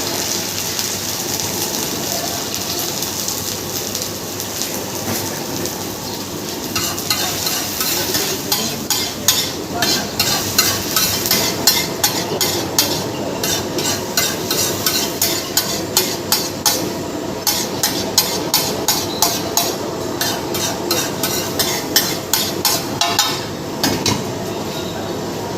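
An egg dish sizzling in a hot pan. About seven seconds in, a metal spatula starts clacking against the pan a few times a second, stirring and chopping, and stops near the end.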